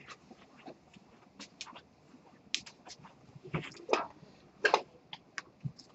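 Irregular clicking and tapping of computer keyboards and mice, with a few louder knocks about halfway through.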